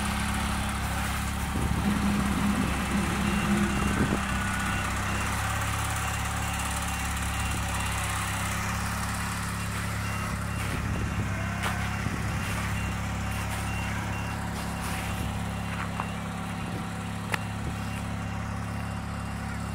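A vehicle engine running steadily, briefly louder in the first few seconds. From about seven seconds in, a repeated high beep like a reversing alarm sounds over it, and there are a couple of sharp clicks near the end.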